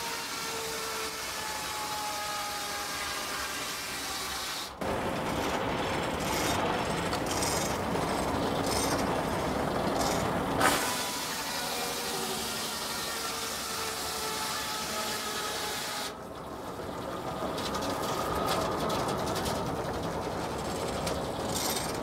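Large circular sawmill head saw cutting through a log on a carriage: steady mechanical noise with a faint whine that shifts in pitch. The sound changes abruptly about five, eleven and sixteen seconds in.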